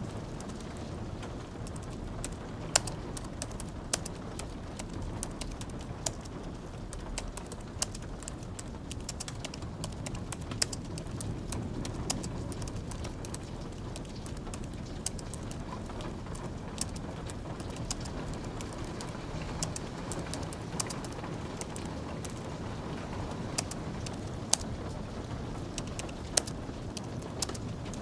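Soft typing on a low-profile keyboard over a steady hiss of light rain, with scattered sharp crackles of a fire, some of them loud.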